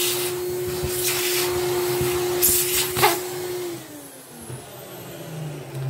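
Bench vacuum cleaner running with a steady whine, its nozzle sucking crumbled foam air-filter debris off a plastic panel, with two short louder rushes as debris is drawn in. It is switched off and winds down about four seconds in.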